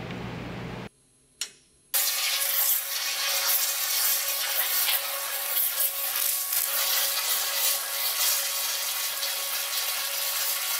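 A steady hum cuts off about a second in. After a short pause with a single click, a waterjet cutter's high-pressure stream hisses steadily as it cuts through sheet metal.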